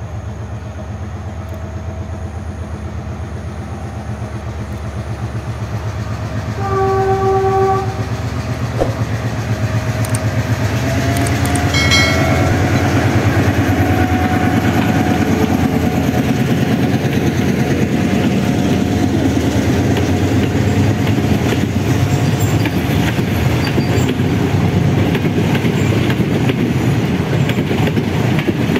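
Sri Lanka Railways Class M6 (EMD G22CW) diesel locomotive approaching and passing with a passenger train. Its two-stroke diesel engine rumbles, growing louder as it nears, and its horn sounds once, for about a second, about seven seconds in. The coaches then roll by with a rhythmic clatter of wheels over the rail joints.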